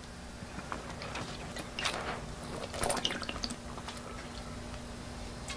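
A man drinking liquor from a bottle: faint sloshing of liquid and swallowing, over a steady low hum.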